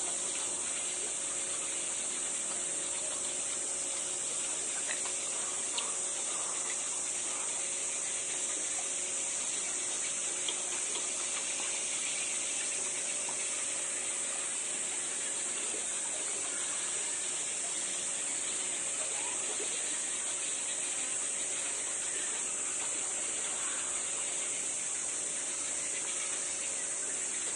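Steady outdoor ambience dominated by a continuous high-pitched insect drone, unchanging throughout, with a faint hiss beneath.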